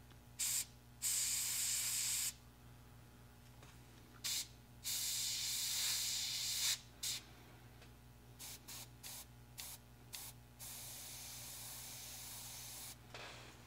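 Gravity-feed airbrush spraying zinc-chromate-yellow paint, thinned with Mr. Rapid Thinner, in bursts of hiss: a few longer sprays of one to two seconds, then a run of quick short puffs near the middle. A low steady hum runs underneath.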